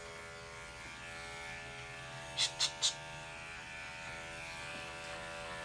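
Electric dog-grooming clipper fitted with a #10 ceramic blade, running with a steady buzz as it shaves through matted fur. Three quick sharp clicks come close together about two and a half seconds in.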